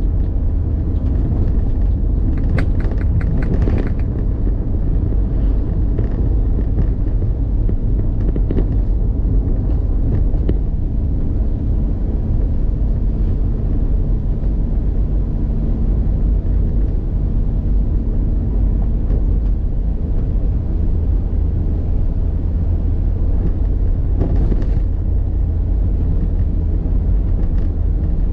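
Steady low rumble of a vehicle on the move, engine, road and wind noise together. A cluster of sharp clicks comes about three seconds in and another near the end.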